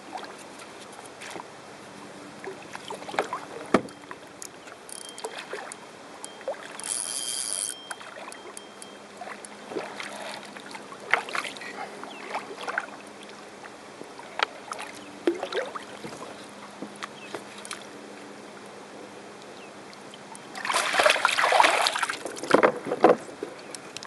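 Water splashing and scattered knocks and clicks around a small fishing boat, with a louder stretch of splashing a few seconds before the end.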